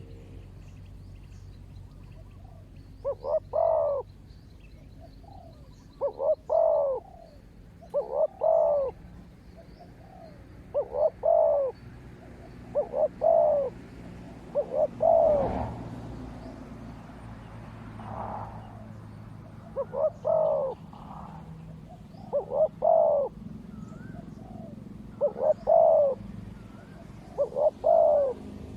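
Spotted doves cooing: about eleven phrases roughly every two to three seconds, each a couple of short notes followed by a longer coo. Faint high chirps of small birds sound in the background.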